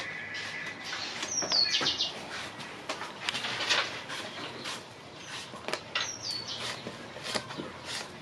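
A hand-held knife cuts crisply through an eggplant, and the pieces tick onto the bottom of an empty metal wok in a series of short, sharp clicks. Twice, about a second in and again after about six seconds, a high chirping call falls in pitch.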